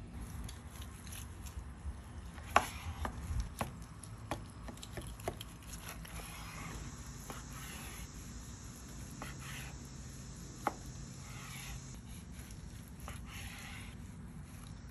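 Chef's knife cutting grilled steak on a cutting board. Sharp clicks and taps of the blade on the board come in the first few seconds, the loudest about two and a half seconds in, and one more comes later. Soft, repeated scraping strokes follow as the blade slices through the meat.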